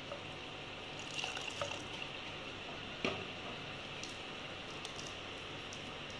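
Wire whisk beating thick batter in a stainless steel bowl: wet squishing with a few clicks of the whisk against the bowl, the sharpest about three seconds in.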